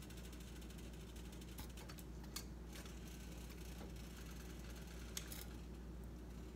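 Metal kitchen tongs clicking and tapping as marinated chicken pieces are lifted from a glass bowl into a stainless steel pan: a few short sharp clicks, the loudest about two and a half seconds in and another near five seconds, over a steady low hum.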